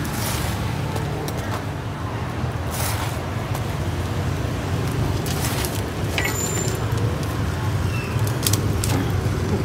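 Street traffic noise, a steady low hum, with a few separate sharp knocks scattered through it.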